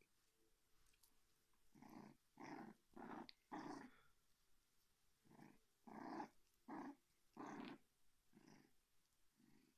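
A puppy growling softly in play: about ten short growls, one run of four around two to four seconds in, then another spread over the rest.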